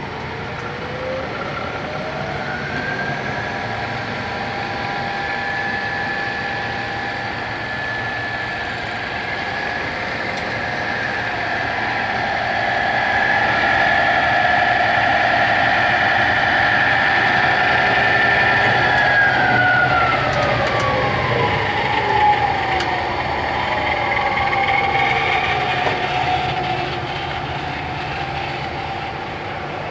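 Hardinge HLV-H-EM toolroom lathe running, its spindle drive giving a steady mechanical whine. The pitch rises in the first few seconds, holds and grows louder, then falls steadily over several seconds about two-thirds through as the spindle speed is turned up and then down on the variable-speed dial.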